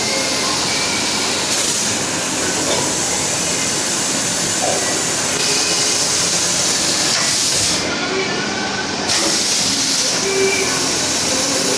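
Vertical airless packaging machine running, a steady mechanical noise with hissing; the highest part of the hiss cuts out for about a second roughly eight seconds in.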